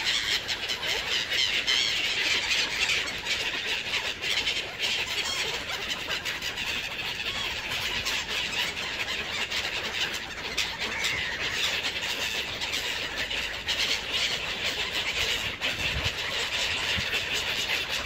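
A flock of gulls calling without pause while being fed, a dense tangle of high-pitched overlapping cries, with scattered flutters of wings.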